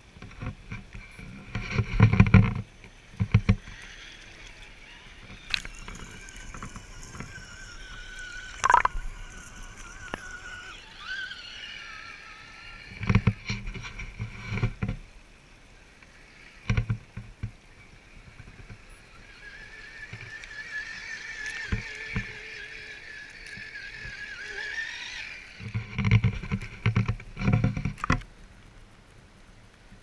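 Electric motor and gears of a scale RC off-road truck whining as it drives through a shallow stream, the whine wavering and rising and falling over several seconds, twice. Rough bursts of splashing water with deep thumps come near the start, in the middle and near the end.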